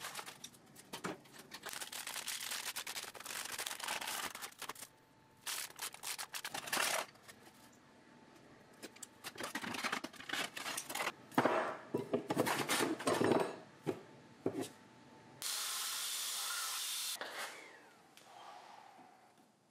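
Stiff steel heat-treating foil crinkling and tearing in irregular bursts as it is peeled off a blade by hand, among small workshop handling noises. Near the end comes a steady hiss of about two seconds that starts and stops abruptly.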